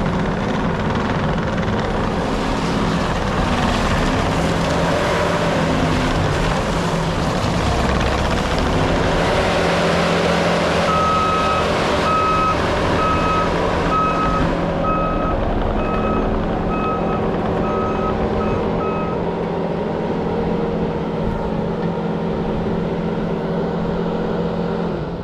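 New Holland C345 tracked skid steer's diesel engine running steadily. A backup alarm beeps about one and a half times a second for several seconds in the middle, and the rushing noise eases about two-thirds of the way through.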